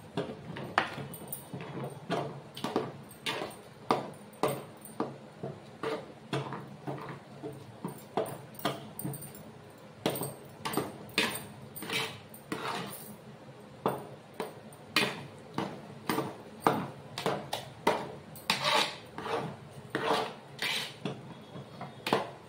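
A ladle stirring a thick ragi flour and rice mixture in an aluminium pot, scraping and knocking against the pot at about two strokes a second, as the flour is worked in for ragi sangati.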